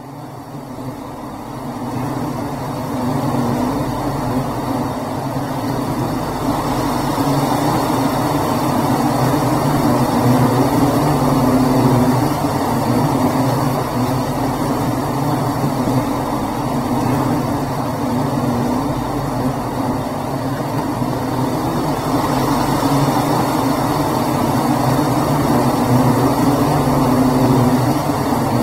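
A swarm of bluebottle flies buzzing, a dense, steady drone that swells over the first few seconds and then holds.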